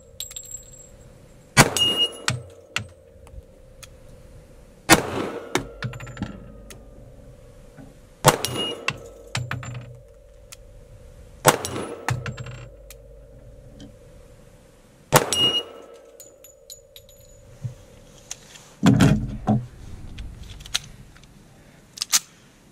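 .45 ACP pistol fired five slow, evenly spaced shots, each followed by a hanging steel target ringing with a steady metallic tone for a few seconds after the hit. Near the end comes a duller, lower thump.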